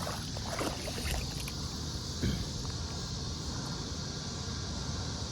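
River water sloshing and splashing lightly around a wading person's legs and hands as a big fish is let go, with a few small splashes in the first couple of seconds, over steady wind rumble on the microphone.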